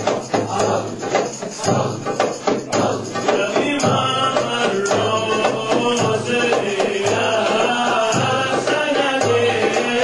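Sufi hadrah music: frame drums beaten in a steady rhythm, with a group of men's voices chanting. The drum strokes stand out in the first few seconds, and the chanting voices grow fuller from about four seconds in.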